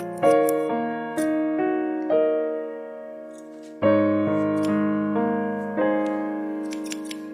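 Background piano music: a slow melody of single notes, each struck and left to fade, with a deep chord coming in about four seconds in.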